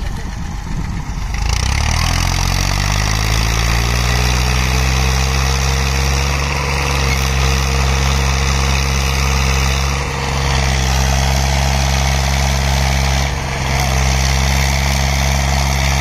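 Massey Ferguson 240 tractor's diesel engine revving up from idle about a second and a half in, then held at high revs under heavy load as it strains to drag a trolley stuck in mud. The revs dip briefly twice, near ten and thirteen seconds in.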